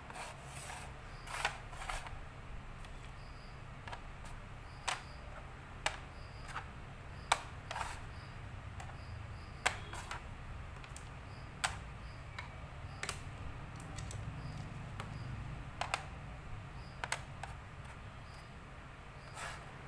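Xiangqi pieces being set down and slid against each other on the board, making sharp clicks at irregular intervals, about a dozen in all.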